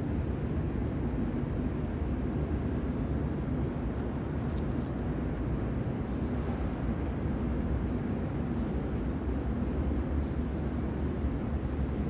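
Steady low ambient rumble in a large, open, empty stadium structure, with no distinct events.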